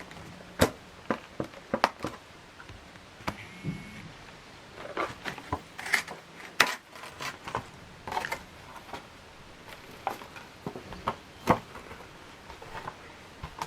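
Scattered light taps and clicks at irregular intervals over quiet room tone.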